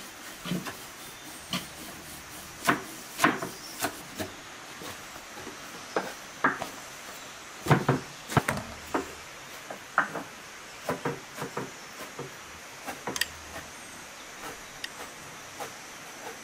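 Irregular knocks and slaps of hand food preparation on wooden boards: a knife chopping greens on a wooden cutting board, and a thin sheet of dough being flapped and slapped down on a floured board, loudest near the middle.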